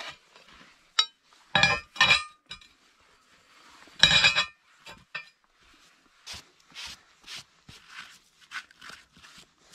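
Cast-iron stove top plate and hob ring clinking and ringing as they are knocked and shifted into place on a brick stove, with the loudest clank about four seconds in. In the second half, a gloved hand brushes snow off concrete blocks in short strokes about twice a second.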